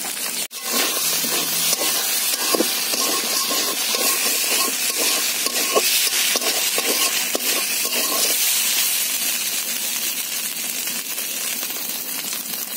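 Pieces of taki fish sizzling in hot oil in a metal wok: a steady hiss. From about a second in until about eight seconds in, a metal spatula scrapes and knocks against the wok as it breaks the fish up.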